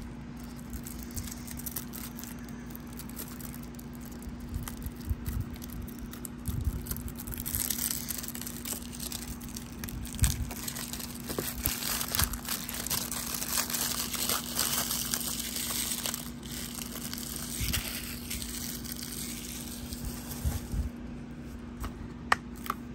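Plastic shrink-wrap being torn and peeled off a Blu-ray case: crinkling and crackling with scattered small clicks, mostly through the middle of the stretch.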